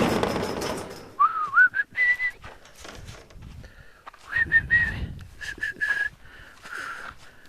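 A loud rush of noise at the start that fades away over the first second, then a run of short whistled notes, a few gliding upward, coming in two groups.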